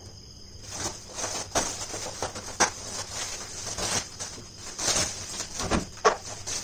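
Plastic packaging sheet rustling and crinkling as it is handled and pulled by hand, in irregular bursts with a few sharp clicks and knocks in between.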